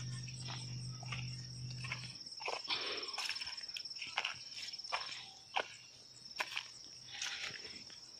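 A steady, high-pitched cricket trill, with irregular footsteps on dry ground. A low hum fades out about two seconds in.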